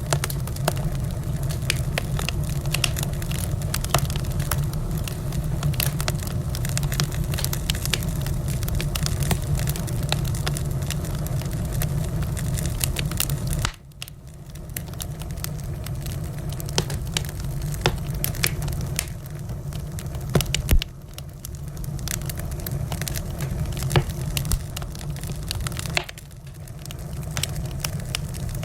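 Wood fire crackling, with irregular pops and snaps over a steady low rumble, and one sharper crack a little past two-thirds of the way through. The sound drops abruptly twice, about halfway and near the end, then builds back up.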